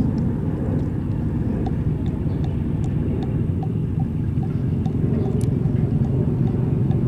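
Passenger fast ferry's engines running as the boat passes, a steady low rumble.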